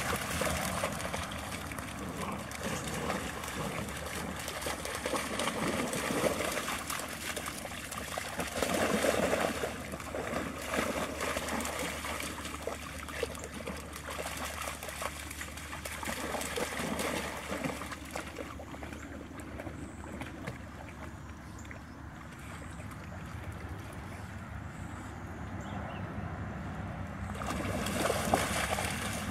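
Shallow pond water splashing and sloshing as Labrador dogs and puppies run and paddle through it, in uneven surges that are loudest about nine seconds in and again near the end.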